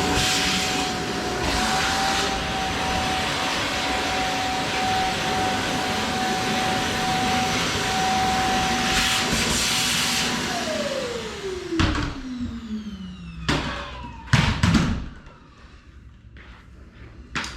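Shark Vertex upright vacuum cleaner running steadily with a constant motor whine, then switched off about ten seconds in, its pitch falling as the motor spins down. A few knocks and clunks follow near the end.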